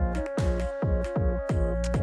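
Background electronic dance music: a steady kick drum at a little over two beats a second under held synth notes.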